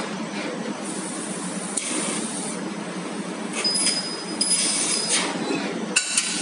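2000 W laser tube cutter cutting 3 mm carbon steel round tube: bursts of hissing cutting over a steady machine hum, three bursts with short pauses between, some carrying a thin high whistle. A sharp click comes near the end.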